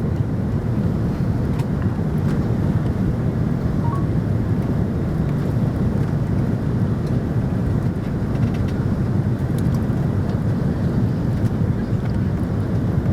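Airbus A330-300 with Rolls-Royce Trent 700 engines: a steady, even rumble of engine and airflow noise, strongest low down, with no change in pitch or level.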